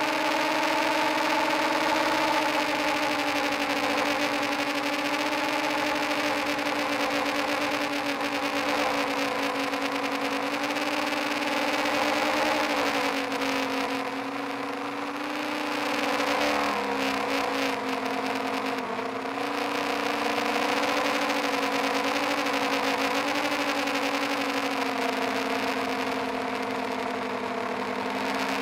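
FPV quadcopter's brushless motors and propellers running with a steady whine, heard through the drone's onboard camera. The pitch dips and rises slightly as the throttle changes.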